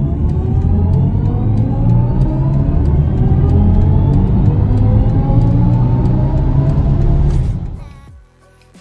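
BMW i4 eDrive40's synthesized Sport-mode drive sound (the 'spaceship' sound) under acceleration: several tones rise steadily in pitch together over a deep rumble. It fades out about eight seconds in.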